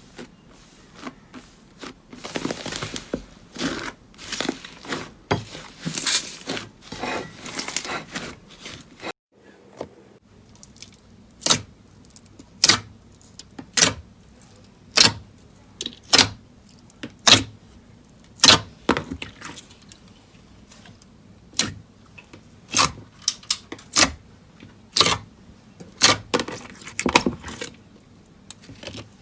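Slime being handled: dense crackling and squishing for several seconds, then after a short break a series of sharp pops, roughly one a second.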